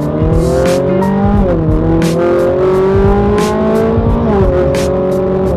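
Ferrari 458 Italia's V8, fitted with an Armytrix valvetronic exhaust, accelerating hard through the gears as heard from inside the cabin. The engine note climbs steadily, drops at an upshift about a second and a half in, climbs again and drops at a second upshift near the end.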